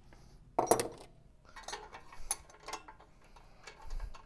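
Metal clanks and light clinks from a steel muffler support bracket and its bolts being fitted by hand under a canister muffler, with one louder clank about a second in and scattered small clicks after it.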